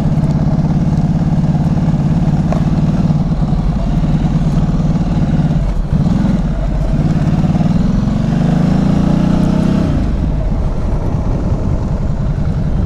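Ducati motorcycle engine running under a rider at low speed. It dips briefly about six seconds in, then rises in pitch as the bike accelerates, and falls back near ten seconds.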